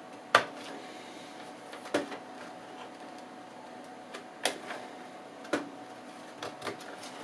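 Six sharp clicks and light knocks, irregularly spaced, the first the loudest, from hands handling the opened desktop computer case and its parts. A faint steady hum runs underneath.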